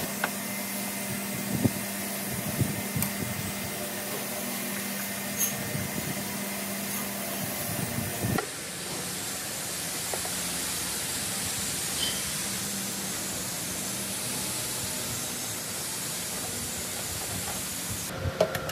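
Steady hissing background noise with a low hum. In the first half there are a few light metallic clicks and taps as screws are driven into a sheet-metal machine panel with a screwdriver. About eight seconds in, the background noise changes abruptly.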